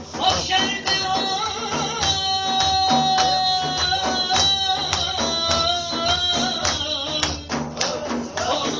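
Live music: a long-held, sustained melodic line over a steady rhythm beaten on a hand drum with jingles.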